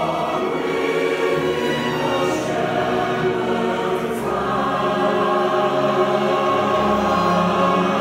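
Mixed choir singing a Christmas piece with violin accompaniment, sustained and steady.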